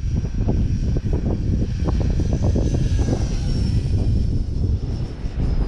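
Strong wind buffeting the microphone, the loudest sound, with the thin high whine of an E-flite F-15 electric ducted-fan model jet flying past; the whine rises slightly in pitch about halfway through, then falls.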